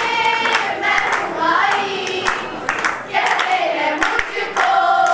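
A group of young women singing together, with hand claps sounding through the song.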